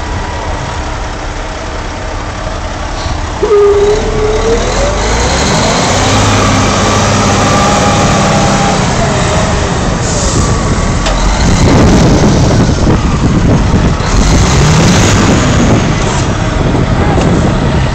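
Heavy gin-pole truck's diesel engine running and revving under load as the truck pulls its trailer forward. The engine pitch climbs sharply about three and a half seconds in, and the sound stays loud after that.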